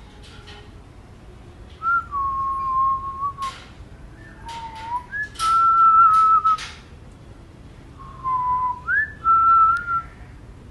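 Person whistling about five sustained notes around one pitch, some with short upward or downward slides, starting about two seconds in, with a few short clicks between the notes.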